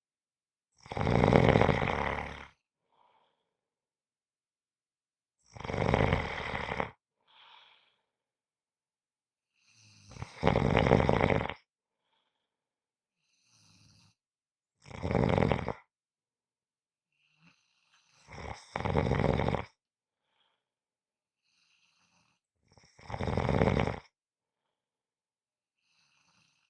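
A sleeping person snoring steadily, with six loud snores about four to five seconds apart, each lasting a second or two, and quiet between them.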